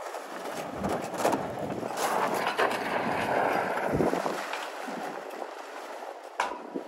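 2020 Ford F-150 pickup doing donuts on snow with traction control off: its tires spinning and spraying snow under engine power, a rushing noise that swells about a second in and fades over the last couple of seconds. A sharp knock comes near the end.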